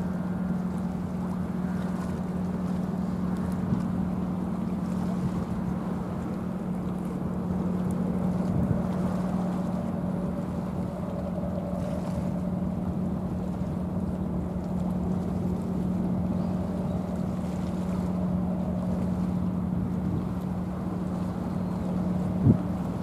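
Ship's engine running with a steady low drone, under a wash of wind and rushing water. A brief thump near the end.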